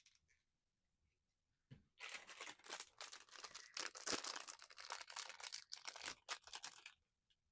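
Plastic blind-box packaging crinkling and tearing as it is opened by hand, a dense crackly run starting about two seconds in and stopping about a second before the end.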